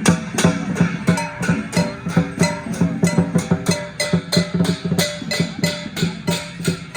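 Lion dance percussion: drum and cymbals beating a fast, even rhythm of about four strokes a second, with a ringing tone underneath.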